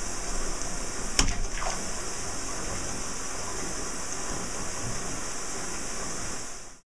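Bath tap running: a steady stream of water pouring into a partly filled bathtub. A single sharp click sounds about a second in, and the pouring cuts off suddenly near the end.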